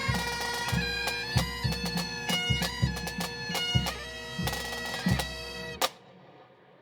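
Pipe and drum band playing: bagpipes sound a melody over their steady drones, with a regular bass drum beat. The music stops abruptly near the end.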